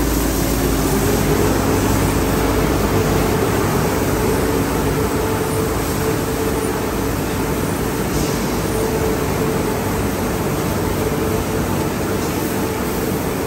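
Tunnel car wash running with a car inside: Holz rotating cloth wrap brushes and side washers spinning against the car, with water spraying and drive motors running. A steady wash noise with a constant hum under it.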